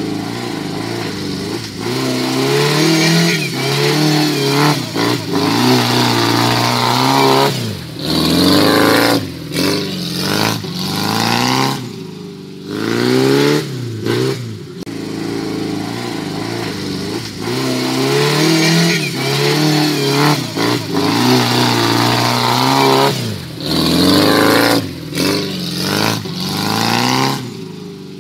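Off-road 4x4 jeep engines revving hard again and again, the pitch climbing and falling back, as the jeeps labour through deep mud ruts.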